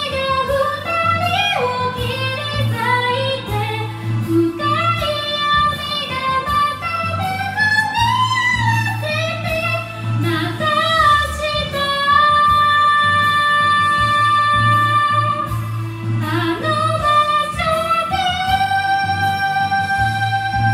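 A woman singing a Japanese song into a karaoke microphone over a karaoke backing track, holding one long note about twelve seconds in and another near the end.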